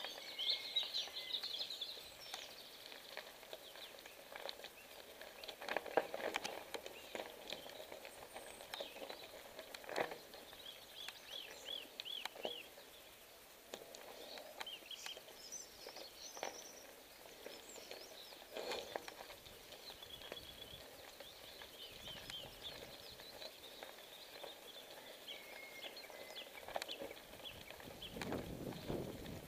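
Small birds chirping and singing on and off, over scattered knocks and rattles of a bicycle rolling over a rough gravel track.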